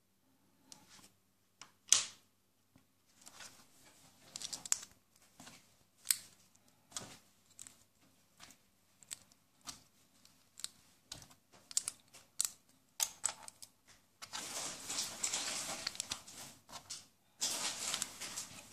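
Small plastic building bricks (Lego and Mega Bloks) clicking and clattering as they are handled, set down on a wooden table and pressed together, in many short separate clicks. Past the middle the clicks give way to two longer stretches of plastic rustling.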